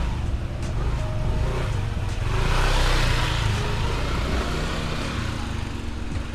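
A motor scooter passing close by: its engine and tyres swell to a peak about three seconds in, then fade as it rides away.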